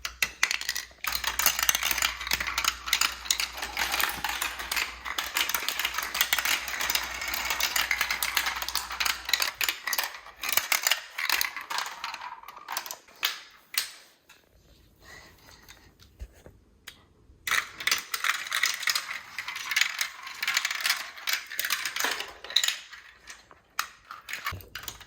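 Marbles rolling and clattering down a plastic VTech Marble Rush track: fast, dense clicking and rattling in two long spells, with a quieter stretch in the middle.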